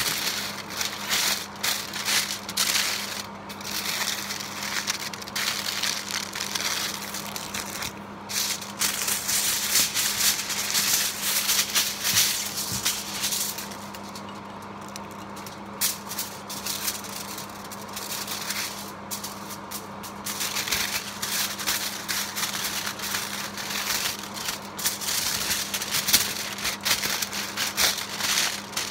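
Aluminium foil being torn, folded and crimped by hand around food, with irregular crackling and crinkling and a quieter pause about halfway through.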